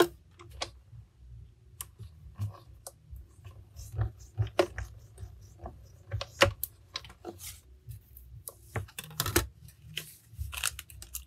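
Irregular clicks and knocks of plastic cutting plates being set into and rolled through a manual die-cutting machine, which is cutting a die through glitter paper.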